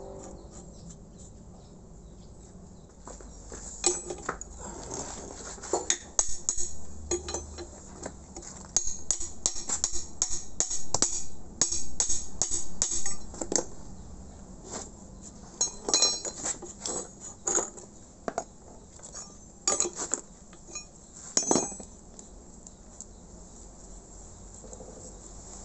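Irregular metal clinks and taps of a steel open-end wrench on the cylinder-head nuts of a small belt-driven air compressor pump as the head is bolted back on. The clinks come in clusters, thickest from about nine to thirteen seconds in, and die away a few seconds before the end.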